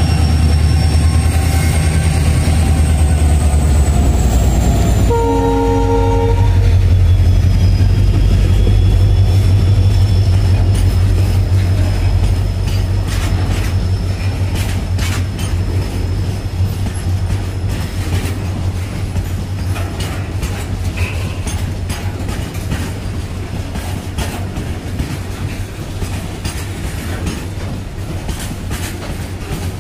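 A freight train's WDG4 diesel locomotives rumble past close by, with a high whine that drifts down in pitch and a short horn blast about five seconds in. Then the hopper wagons roll by with a rhythmic clickety-clack of wheels over rail joints, slowly growing quieter.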